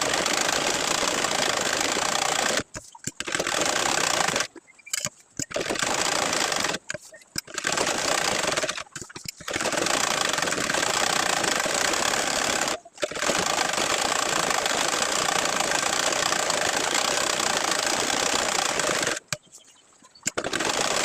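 Sewing machine running at speed while stitching a nakshi kantha design, going in long runs broken by about half a dozen brief stops.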